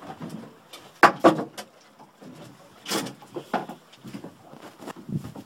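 Sharp knocks and clunks: three in quick succession about a second in, a loud one about three seconds in and a lighter one soon after.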